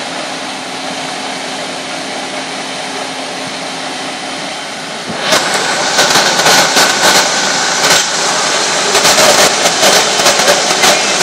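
Fire engines running at idle, a steady engine hum with a held low tone. About five seconds in, a much louder rushing noise full of crackles takes over.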